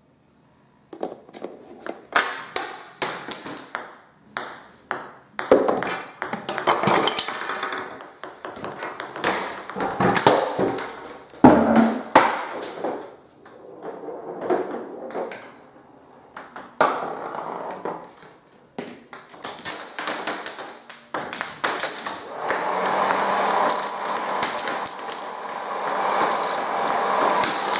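A homemade chain reaction machine running: a long irregular string of light clicks, taps and clattering knocks as balls, cups, cards and dominoes fall and strike one another. For the last several seconds this gives way to a steadier rolling rumble, like balls running along a track.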